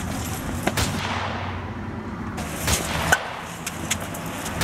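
Several sharp knocks and clicks, with a burst of rushing noise about a second in that fades away.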